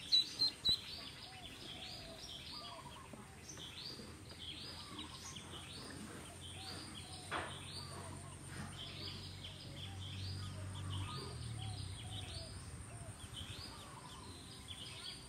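A live duckling used as fishing bait peeping over and over, short high peeps about two a second, with one sharp click about halfway through.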